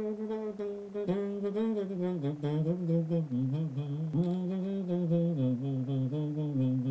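Soundtrack music: a low male voice singing a slow melody of long held notes that step down and back up.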